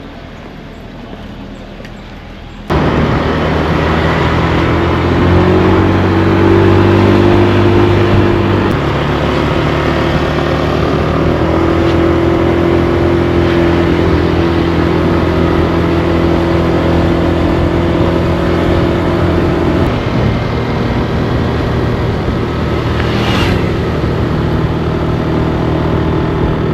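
A rented motor scooter's engine running on the road over a loud rushing noise, starting abruptly about three seconds in. Its pitch shifts a few times as the throttle changes.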